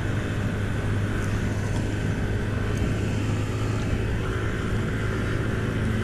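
Honda CB300 single-cylinder motorcycle cruising at about 65–70 km/h: steady engine hum with road noise.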